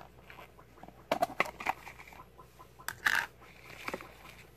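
Hands handling plastic deli cups and unwrapping a paper towel inside one: scattered rustles and crinkles with a few sharp clicks of plastic.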